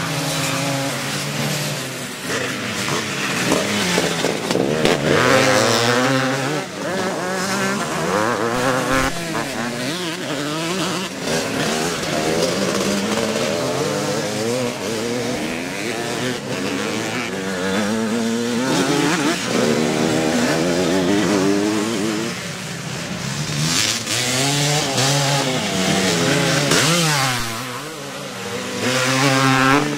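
Vintage motocross bikes racing past one after another, their engines revving up and down with throttle and gear changes. Loudest a few seconds in and again near the end, as bikes pass close.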